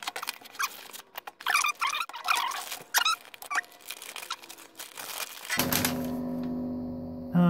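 Paper and cardboard packaging rustling and crinkling as a folded paper manual is pulled from a small box and unfolded, with sharp irregular crackles and squeaks. About five and a half seconds in this gives way to a steady low hum.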